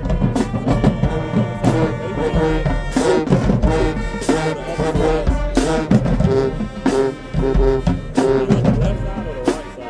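Marching band playing: brass horns sounding sustained chords over a pounding drumline, with sharp percussion hits recurring through the passage.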